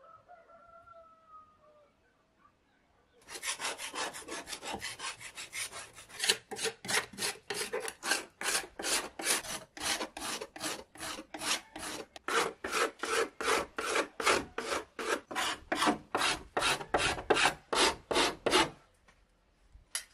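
Hand-worked abrasive strokes on old painted wooden facade boards: a rasping rub about three times a second, starting about three seconds in and stopping shortly before the end. A faint rooster crow comes first.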